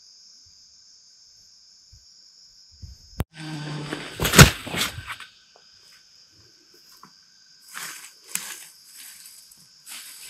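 A steady, high-pitched insect call runs throughout. About three seconds in there is a click, then a second or so of rustling with one loud sharp knock, and more rustling comes in bursts near the end.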